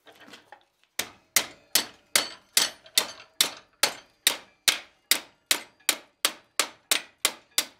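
Hand hammer striking red-hot steel bar stock clamped in a leg vise, bending over the end of a forged hook. About eighteen quick, even, ringing metal blows, roughly two and a half a second, starting about a second in.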